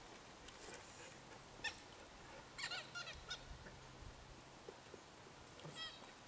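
A dog yapping faintly and far off in short high-pitched calls: one about two seconds in, a quick run of them around three seconds in, and a few more near the end.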